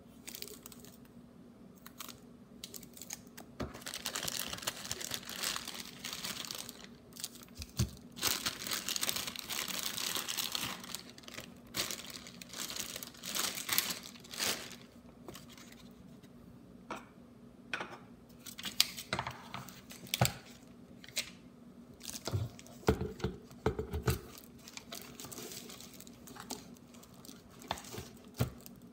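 Packaging crinkling and rustling as it is handled and pulled apart, in long stretches, followed by scattered clicks and light taps.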